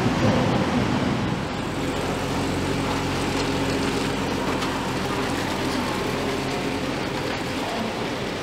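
Steady machinery hum of a car assembly hall, with a car running as it drives slowly through.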